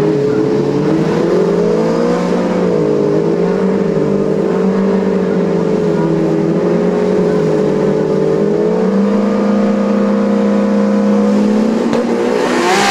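Engines of a BMW E30 drag car and a VW Beetle drag car running at the start line, held at steady revs with the pitch drifting slowly up and down. Near the end they rev sharply and the sound grows harsher as the cars launch.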